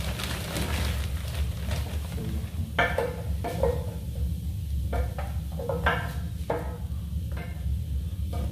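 Short clinks and clatters of pots and mugs being handled and set down, about eight strikes through the second half, some ringing briefly, over a steady low hum.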